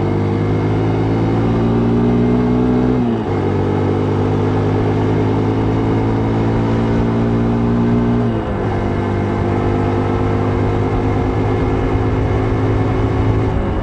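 Vehicle engine running under way, its pitch climbing slowly and dropping abruptly twice, about three seconds in and again about eight and a half seconds in, as with upshifts. Under it is a steady rush of wind noise.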